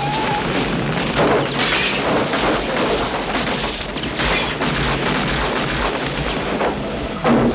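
A Jeep Wrangler driving hard over rough ground in a film soundtrack mix, with several booming crashes and some music.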